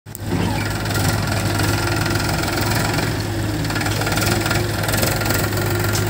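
Powertrac 439 Plus tractor's diesel engine running steadily.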